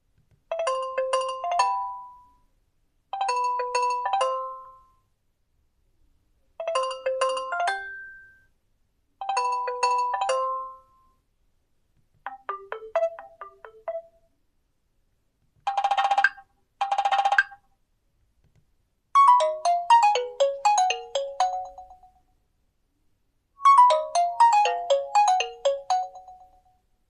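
Nokia 2780 Flip default ringtones playing one after another: a short melodic phrase repeated four times, then a different short phrase, two brief buzzy bursts, and a descending run of notes played twice.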